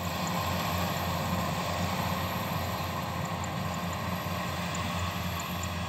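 Kubota DC-93 combine harvester's diesel engine and threshing machinery running with a steady low drone while cutting rice. It is being run gently rather than pushed hard.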